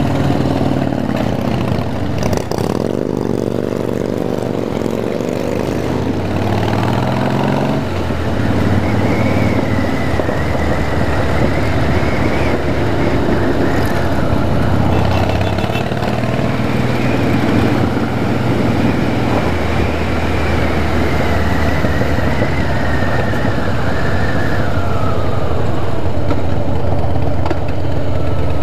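Motorcycle's V-twin engine under way, accelerating through the gears in the first eight seconds or so, the pitch climbing and dropping at each shift, then running steadily at cruising speed.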